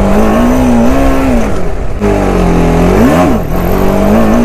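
TVS Apache RR 310 single-cylinder engine revving hard through a wheelie. The revs are held high, sag briefly, then rise in a quick blip about three seconds in and are held high again.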